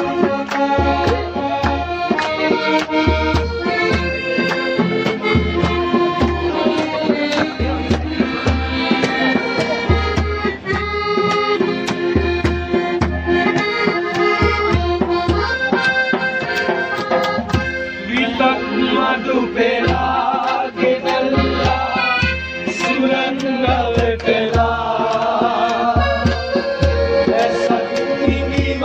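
Instrumental music: a melody of held notes over a steady low beat.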